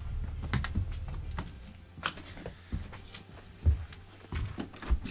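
Footsteps and small knocks of the camera being carried, irregular and spaced out, over a low rumble.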